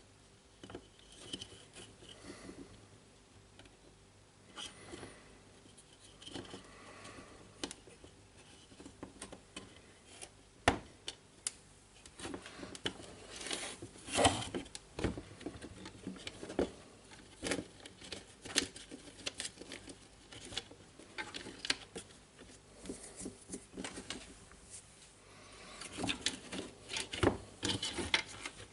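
Hands handling cordless jigsaw parts on a workbench: scattered small clicks, taps and rustling, with the sharpest knocks about 11 and 14 seconds in and a busier run of clicks near the end.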